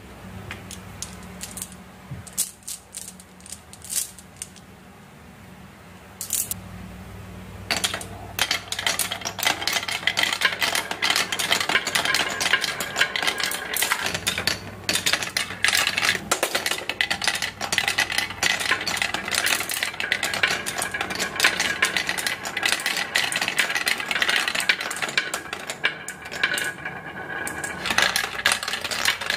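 Marbles on a HABA wooden marble-run ramp: a few scattered clicks at first, then, from about eight seconds in, a dense, continuous clatter of many marbles rolling and knocking down the track.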